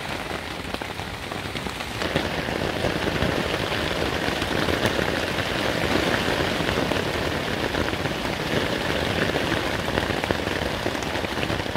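Heavy rain drumming on the fly of a Naturehike Opalus 2 tent, heard from inside the tent: a dense, steady patter of drops that grows a little louder about two seconds in.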